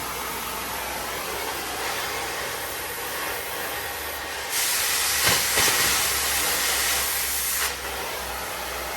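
Cutting torch hissing steadily as it cuts steel truck frame, with a louder, harsher hiss about halfway in that lasts some three seconds and then cuts off.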